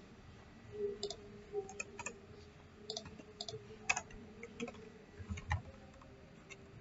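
Computer keyboard being typed on: faint, irregular key clicks in short runs.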